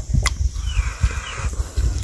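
Close-up chewing and eating-by-hand noises, with a couple of sharp clicks. An animal calls in the background about a second in, a short falling cry.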